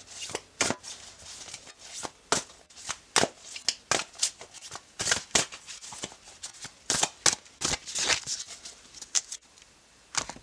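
A deck of tarot cards being shuffled by hand: a quick, irregular run of papery flicks and snaps, stopping about a second before the end.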